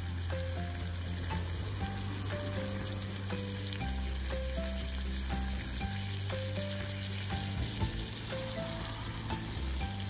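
Scallops in their shells sizzling on a wire grill over a fire, under background music with a slow bass line and a short repeating melody.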